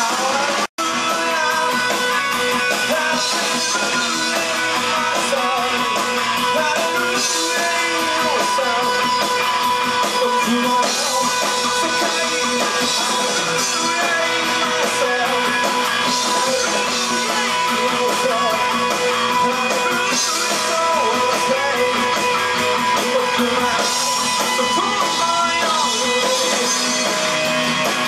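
Rock band playing live, an instrumental passage led by guitar over drums, with a split-second dropout in the sound just under a second in.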